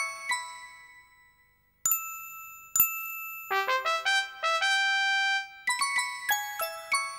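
Bell-like chime music: a few notes of a falling run ring out and fade, then two single ringing dings, then a quick rippling run of notes stepping up and down, and another falling run of chimes near the end.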